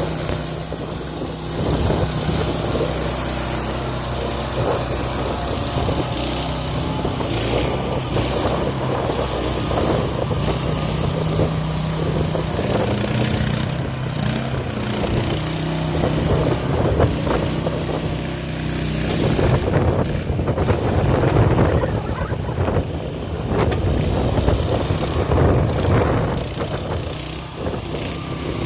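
AGROTK QH12R mini excavator running, its engine note stepping up and down several times, with irregular clanking and rattling throughout.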